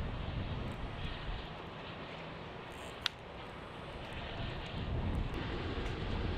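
Steady engine rumble with a rushing noise, and one short sharp click about three seconds in.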